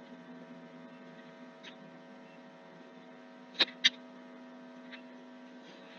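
Steady electrical mains hum, a low buzz with a stack of even overtones, picked up on the recording. Two short sharp clicks come about three and a half seconds in, a quarter of a second apart.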